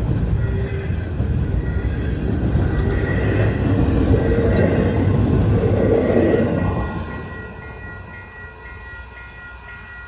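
Double-stacked intermodal freight cars rolling past with a steady rumble and wheel clatter, which falls away sharply about seven seconds in as the tail of the train goes by, leaving a faint high ringing tone.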